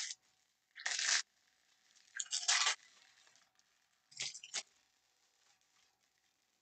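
Plastic wrapping crinkling and tearing as it is pulled off a stack of trading cards, in three short bursts about a second and a half apart.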